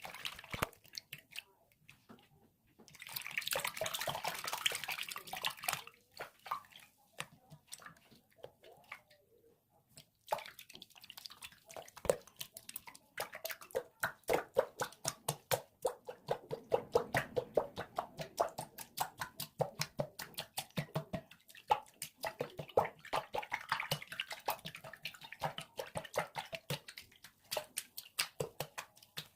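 Wet soap sounds: a few seconds of splashing, hissing water, then a long run of quick, wet squelching clicks as liquid soap is squeezed and worked.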